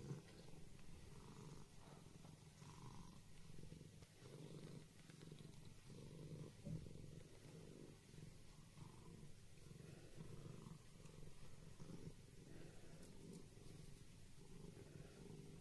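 A cat purring steadily and faintly, in an even pulsing rhythm.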